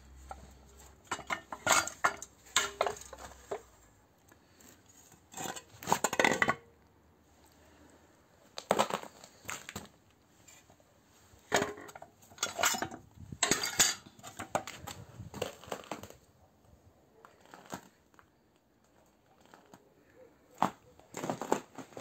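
Metal clanking and rattling in short, irregular bursts a few seconds apart as old Soviet washing-machine wringers are handled.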